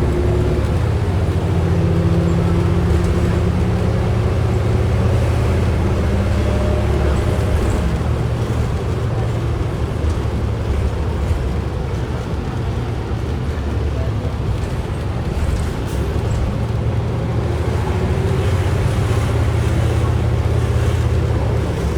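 Cabin noise of a 2010 Orion VII NG city bus under way: a steady low engine and drivetrain rumble whose tone rises and falls as the bus changes speed, with a body rattle.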